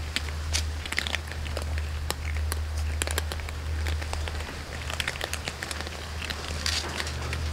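A group of cats crunching dry kibble: a steady patter of small sharp crunches and clicks, over a steady low hum.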